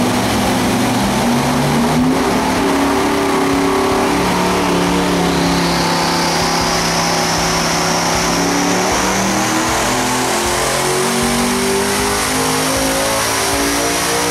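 Steve Morris Engines' quad-turbo V16 running hard on an engine dynamometer during a high-boost power pull. Its pitch sags, then climbs steadily toward the end, with a high turbocharger whine rising alongside it.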